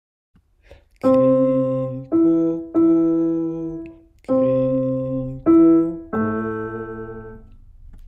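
Short intro tune on a piano-like keyboard: six notes struck one after another, each dying away, the last left to ring out.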